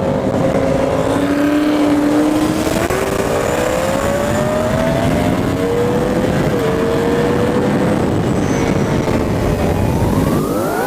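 A vehicle engine under load, its pitch climbing steadily and dipping briefly about six and a half seconds in, as at a gear change.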